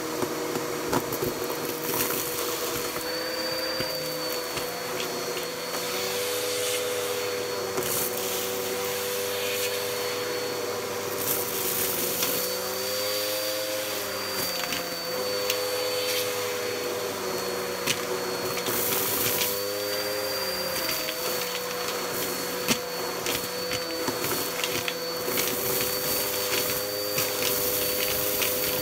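Bissell PowerForce upright vacuum running through its hose and crevice tool, sucking up a pile of dust, lint and paper scraps from carpet. The motor hum dips in pitch and recovers several times as the nozzle works into the debris, with crackles and ticks of bits rattling up the hose.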